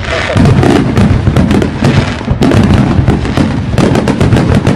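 Fireworks display going off: a dense, continuous run of overlapping bangs and crackles with no pause.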